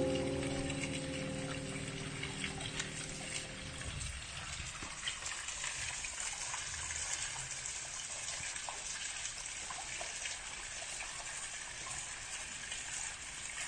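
Thin waterfall splashing steadily onto rock, a continuous rush with a fine patter of drops. Sustained background music notes fade out during the first four seconds.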